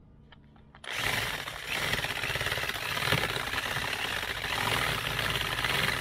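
Corded electric drill starting up about a second in and running steadily, with an Allen key spinning in its chuck to chew rotten wood out of a bolt hole in a teak deck.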